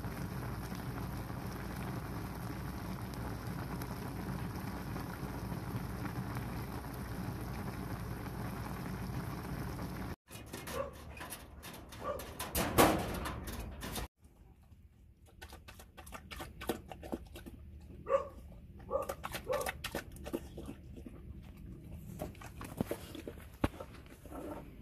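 A pot of seafood jjamppong instant noodles boiling on a stove, a steady bubbling hiss, for about ten seconds. It cuts off suddenly, giving way to a dog making short whines and barks, with scattered clicks and knocks between them.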